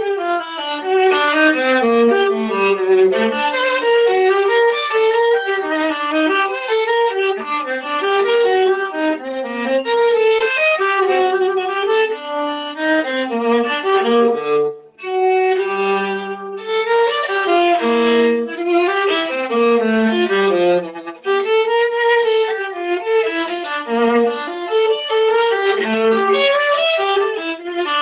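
Solo viola playing a continuous melodic line of moving single notes, pausing briefly about fifteen seconds in. It is heard through a crunchy-sounding microphone.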